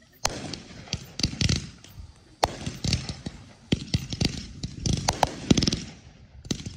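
Fireworks fired from the ground in quick succession: sharp bangs and pops, with crackling between them as the shells burst into sparks. There is a short lull near the end.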